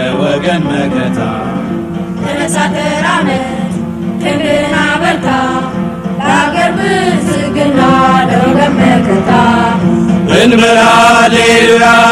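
Music with sung, chant-like voices over a steady low drone, growing louder about ten seconds in.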